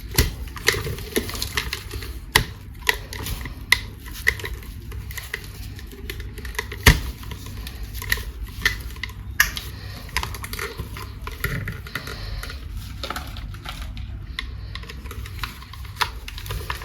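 Irregular sharp clicks and taps of hard plastic being handled, several a second, with one louder knock about seven seconds in, over a low rumble.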